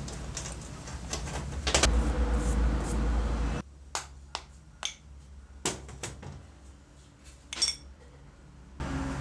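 A steady low hum with a few clicks of metal parts being handled, then, after a sudden drop, about five sharp, irregular metal taps as a hammer drives the circular saw's gear shaft and bearing out of its housing.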